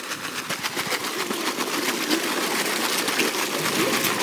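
A packed crowd of carp gulping at the water's surface with open mouths: a dense, rapid patter of wet clicks, pops and small splashes that grows a little louder.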